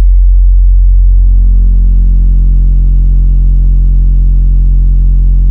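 Auna 30 cm paper-cone subwoofer in a bass-reflex box playing a steady 45 Hz sine test tone at about 133 dB SPL in the van's cabin: a very loud, deep, even hum. About a second in, its buzzing overtones grow stronger as more amplifier gain is given.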